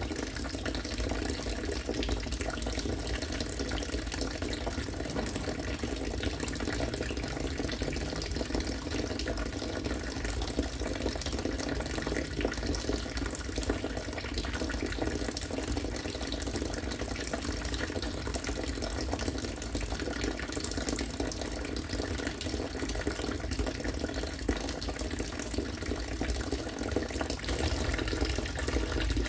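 Harvested rainwater falling steadily into collected water, splashing and bubbling without pause.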